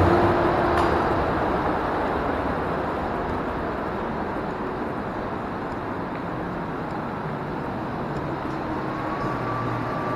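Berlin S-Bahn electric train at the platform, a steady rumble that eases off over the first couple of seconds, with a faint rising whine near the end.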